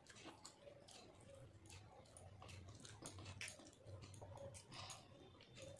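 Faint close-up chewing of soft food (rice and curry): irregular soft mouth clicks and smacks.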